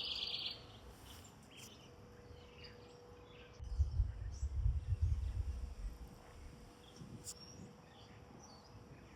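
Quiet outdoor ambience with faint, scattered bird chirps. A high buzzing trill ends about half a second in, and a low rumble, the loudest sound, runs from about four to six seconds.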